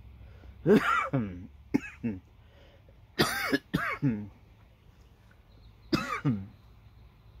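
A man coughing in loud, short bouts, with a longer pause before a last cough near the end. The coughing is the choking reaction to a hit just taken from a cannabis vape cartridge.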